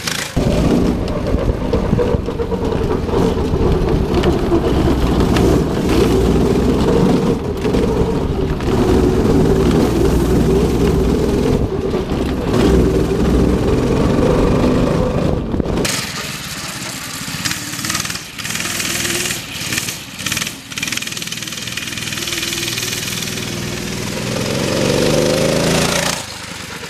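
Go-kart's small single-cylinder engine running at high revs through a lap on grass, loud and close for the first half. About two-thirds of the way in it falls back to a quieter, more distant sound, then swells again as the kart comes back past near the end.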